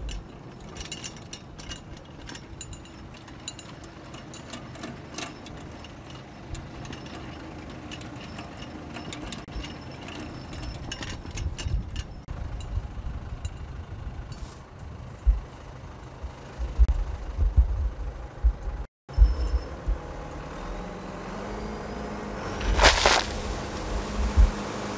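An engine running, with scattered clicks and knocks. It breaks off briefly past the middle, then comes back steadier and rises in pitch near the end.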